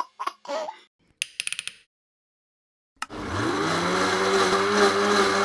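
A few short blips and a brief rattle, then about three seconds in a click and a kitchen blender's motor spinning up and running steadily, blending the juice.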